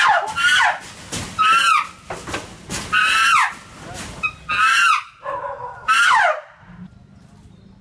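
Chimpanzee screaming: a run of loud calls, each rising then falling in pitch, roughly one every half second to a second, which stop about six and a half seconds in.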